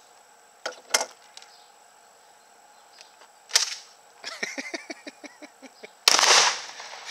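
SDS Radikal bullpup 12-gauge shotgun: a few clicks of handling, a sharp clack, and a quick run of light clicks, then one loud shot a little after six seconds in.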